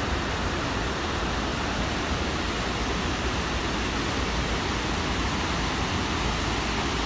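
Water of the Snake River pouring over the long, low weir of Idaho Falls and down through the rocks below: a steady, even rush of falling water.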